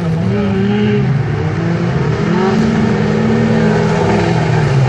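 Autocross race cars' engines revving hard on a dirt circuit, more than one at once, their pitch rising and falling as they accelerate and lift.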